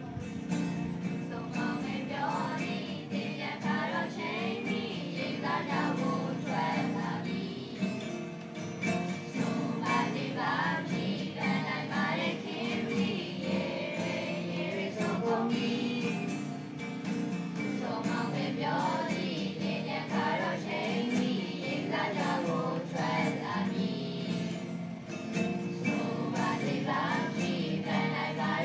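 A group of teenagers singing a song together, accompanied by strummed acoustic guitars.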